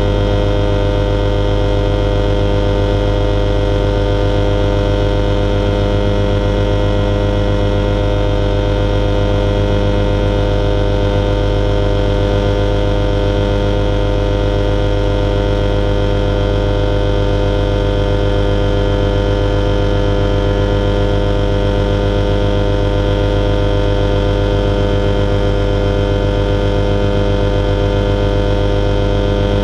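Alisport Silent-In motorglider's self-launch engine and propeller running steadily during the climb after take-off, heard from inside the cockpit as a loud, even drone that holds one pitch throughout.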